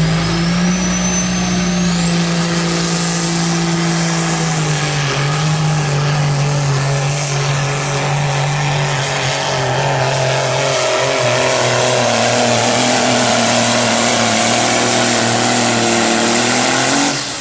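Semi truck's diesel engine running at full throttle as it pulls a weight-transfer sled, a loud, steady drone. The pitch drops a little about five seconds in, and the sound falls away sharply near the end as the run finishes.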